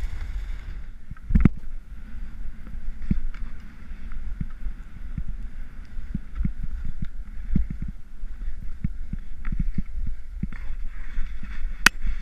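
Rossignol Sin 7 skis sliding and scraping over snow, with wind rumbling on the camera microphone and frequent knocks as the body-worn camera is jostled. There is a heavy thump about a second and a half in and a sharp click near the end.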